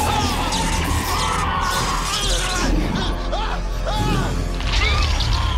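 Monster-movie soundtrack: dramatic music under crashing and shattering effects, with several short, sharp cries that rise and fall in pitch.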